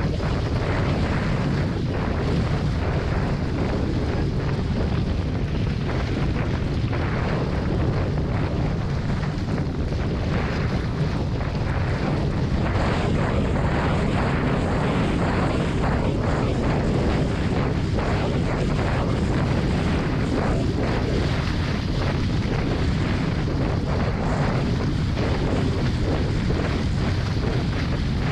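Heavy, steady wind noise buffeting the camera's microphone, with water rushing past the hulls of a Hobie 16 catamaran sailing fast in strong wind.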